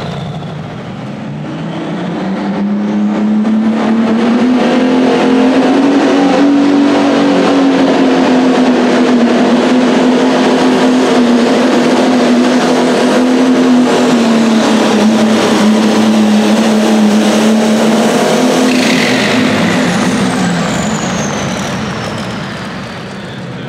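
Light limited super stock pulling tractor's engine running at full throttle while hauling the weight-transfer sled down the track. Its note swells over the first few seconds and holds steady through most of the pull. Near the end it drops off, with a high whine falling in pitch.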